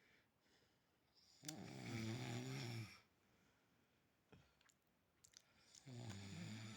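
A sleeper snoring: two long, buzzy snores, the first about a second and a half in and the next beginning near the end, with quieter breathing and small clicks between them.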